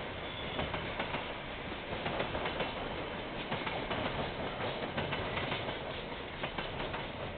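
A train's wagons rolling past on the rails: steady rumbling noise with many irregular clicks and knocks from the wheels, heard through a security camera's microphone.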